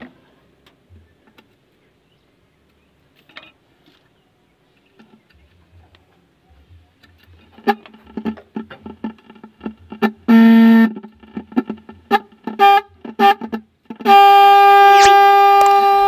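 Electric snail horn on a car being sounded during adjustment: a rattling, stuttering buzz from about eight seconds, a short honk around ten seconds, a few brief beeps, then a long steady honk from about fourteen seconds. The horn, dead before its service, is sounding again after a gasket was added inside it.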